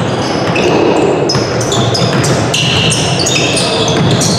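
Match sounds from a football game: a ball bouncing or being kicked, and many short, high squeaks or cries over a steady din of voices.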